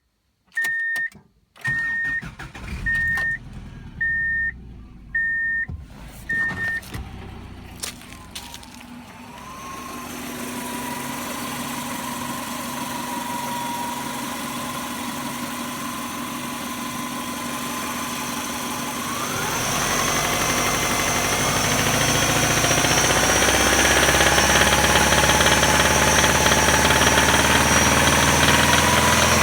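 A car's warning chime beeps about once a second for several seconds. Then the 1999 Subaru Outback's 2.5 L flat-four starts and idles steadily. About twenty seconds in the revs are raised and held higher, into the range where the owner hears a hard knock that he suspects is rod knock.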